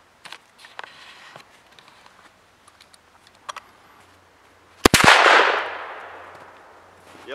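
A single rifle shot from an AK-74 firing 5.45x39 at a steel frying pan: one sharp crack about five seconds in, followed by a long echo that fades over about two seconds. A few faint clicks come before it.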